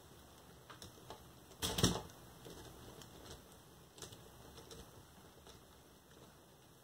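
Faint, irregular plastic clicking from a Lego Technic model's gears and knob as the fork-lift knob is turned by hand, with a louder cluster of clicks about two seconds in.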